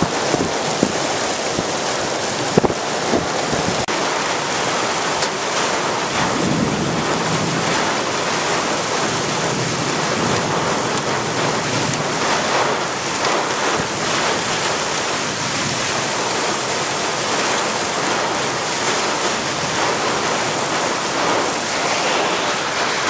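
Flash-flood water rushing, a steady, dense noise.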